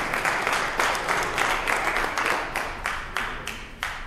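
Congregation applauding with many hands clapping. The applause thins out and dies away near the end.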